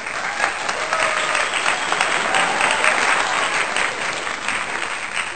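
Crowd applauding: dense clapping from many hands that starts abruptly and fades out near the end.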